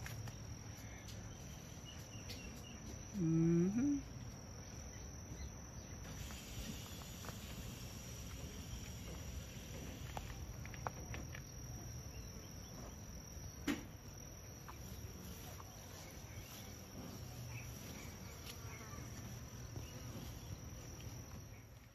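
Crickets or similar insects trilling in one steady high note. About three seconds in there is a brief, loud, low-pitched call that jumps upward in pitch, and a single sharp tap comes near the middle.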